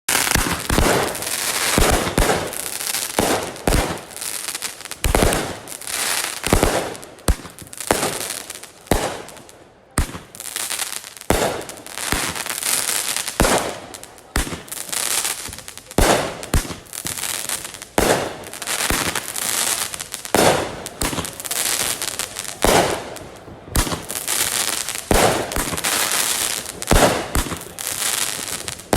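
Fireworks going off: a long string of sharp bangs, roughly one or two a second, with hissing crackle between them.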